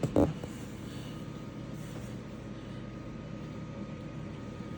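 Steady low mechanical hum with a few faint steady tones, from a running machine in the background.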